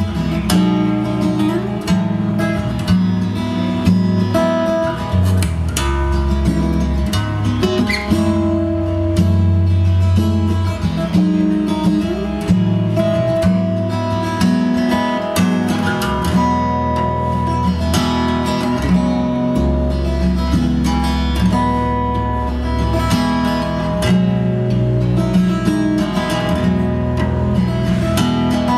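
Acoustic guitar music, strummed and plucked over a steady bass line, played back through B&W 686 S2 bookshelf speakers driven by a Muzishare X7 KT88 push-pull tube amplifier.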